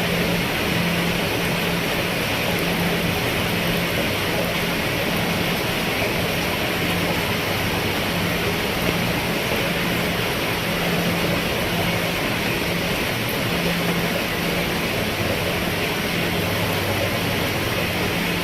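Steady rain falling on a roof, an even hiss of many drops, with a low hum that comes and goes beneath it.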